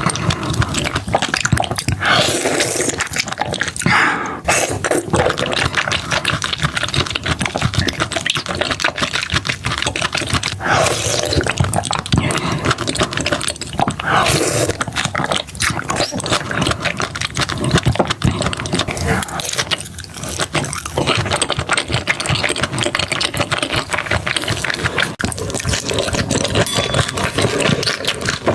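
Close-miked wet chewing and slurping of seafood, with dense smacking clicks and a few short slurps.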